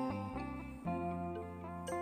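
Background music: an instrumental with pitched notes changing every half second or so over a steady bass.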